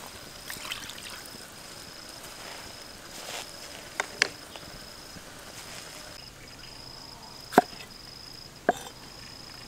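Two sharp knocks late on as a kitchen knife chops tomatoes against a wooden cutting board, with a pair of similar clicks about midway. Underneath, insects keep up a steady high pulsing chirr.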